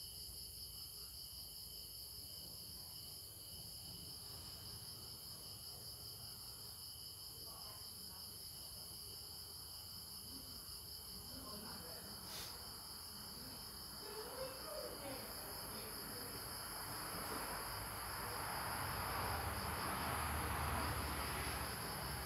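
Insects trilling steadily in two high, finely pulsing tones, with a single faint click about twelve seconds in and a broad rushing noise that builds in the second half.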